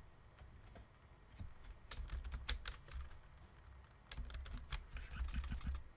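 Typing on a computer keyboard: scattered keystrokes in short irregular runs.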